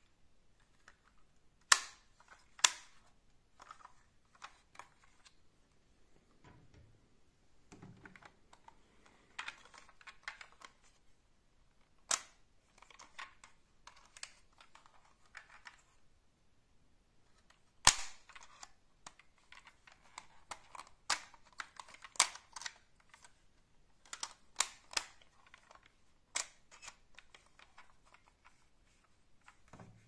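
Small toy vehicles with opening doors are handled and knocked together in a cardboard box. Scattered sharp clicks and clacks come at irregular intervals, with quieter rubbing and rustling between them.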